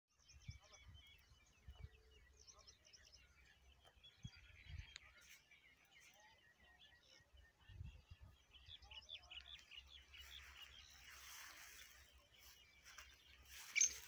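Faint chirping of small birds in open farmland, with a few soft low thumps and a brief rustle about two-thirds of the way through. Near the end the first loud, harsh note of a black francolin (black partridge) call breaks in.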